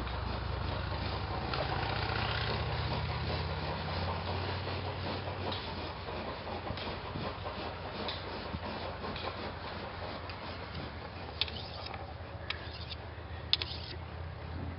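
Vehicle engine idling steadily with a low hum, with a few sharp clicks in the last few seconds.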